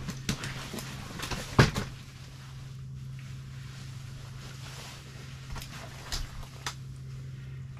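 Scattered clicks and knocks from fishing gear and a fish being handled by hand, the loudest about a second and a half in, over a steady low hum.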